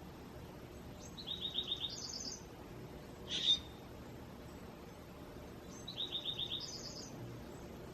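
A songbird singing the same short phrase twice, a few seconds apart: a quick run of about five notes, then a higher, faster series. A single sharp call note comes between the two phrases.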